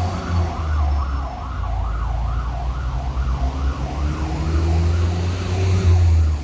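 Fire engine's electronic siren on a fast yelp, sweeping up and down about two to three times a second, over the low rumble of the truck's engine.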